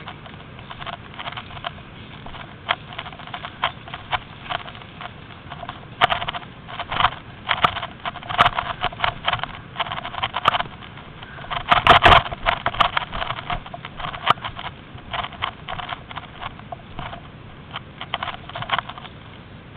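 Footsteps and body movement crunching and rustling through dry brush, twigs and leaf litter, in irregular bursts with the loudest cluster about twelve seconds in.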